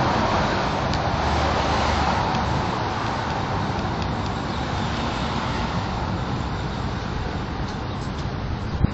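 Street traffic noise: a steady rush of passing cars that slowly fades, with a single sharp knock near the end.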